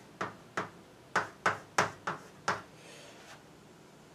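Chalk writing on a blackboard: a run of about seven sharp taps in the first two and a half seconds, then a faint scratch of chalk about three seconds in.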